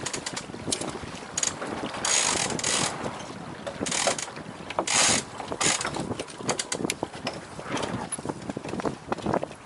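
Clicking and rattling of a small sailboat's deck hardware, winch ratchet and blocks, among several louder gusts of wind noise.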